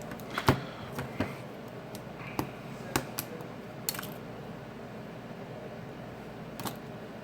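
Irregular sharp little clicks and taps of small hard parts being fitted and pressed into the clips of a Sony Xperia Z5 Premium phone during reassembly, several in quick succession over the first four seconds and one more near the end.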